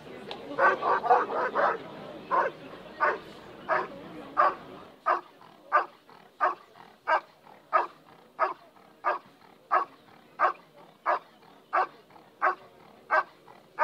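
German Shepherd dog barking at the hiding blind in an IGP bark-and-hold, the signal that it has found the hidden helper. A quick burst of about five barks comes near the start, then single barks at a steady pace, about three every two seconds.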